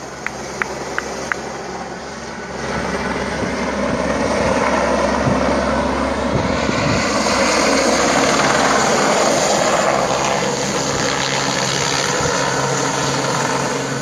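Army helicopter's rotor and engine noise, swelling from about two and a half seconds in as it passes low and close, loudest in the middle and easing a little near the end.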